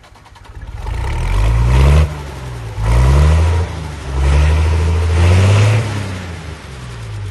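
A heavy tractor engine revving three times, its low pitch climbing with each rev and falling back in between.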